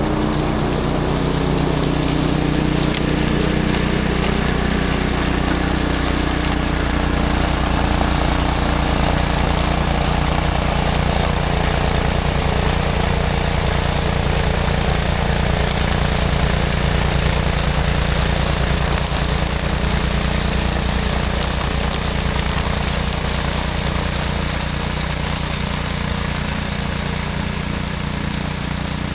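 A small petrol engine, likely the new snowblower's, running steadily at a constant speed with a wide hiss of noise over its low hum.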